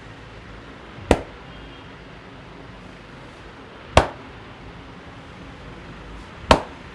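Three sharp hand slaps on the head in an Indian head massage, each a single loud smack, a little under three seconds apart, over a steady low background hum.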